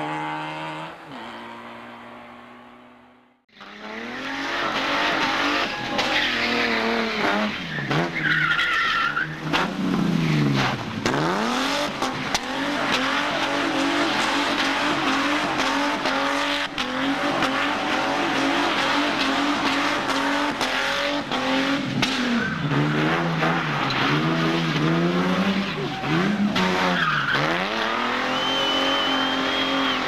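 A rally car's engine note fading away as it passes. Then rally car engines revving hard, the pitch dropping and climbing again and again as the driver shifts gears, with a brief high squeal about nine seconds in.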